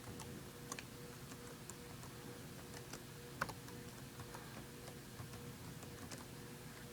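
Faint, irregular keystrokes on a Dell Chromebook 11 laptop keyboard as a Wi-Fi password is typed in, with one sharper click about three and a half seconds in.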